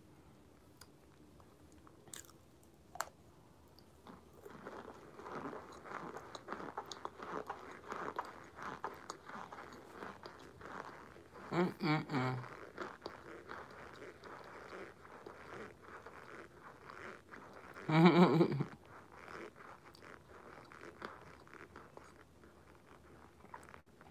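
Crunching and chewing on chunks of packed cornstarch (Argo), heard as a dense run of small crisp crunches for several seconds. Two short bursts of her voice, about halfway through and again some six seconds later, are the loudest sounds.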